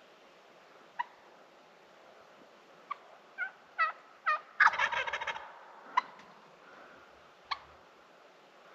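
Wild turkey calling: a few short sharp notes, then a loud rattling gobble about halfway through, followed by two more single short notes.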